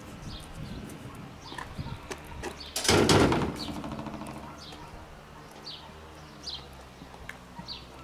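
A metal garden gate shuts with a clang about three seconds in, its metal ringing on briefly and fading. Small birds chirp repeatedly in short, falling calls.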